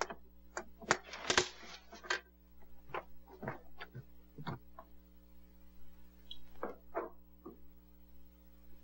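Scattered light clicks and knocks of household handling, with a brief denser rustling burst about a second in, over a steady low hum.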